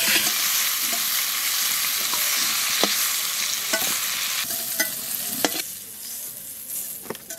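Cauliflower florets sizzling in hot mustard oil in a metal wok, with a metal spatula scraping and clinking against the pan as they are stirred and lifted out. The sizzle dies down over the last few seconds.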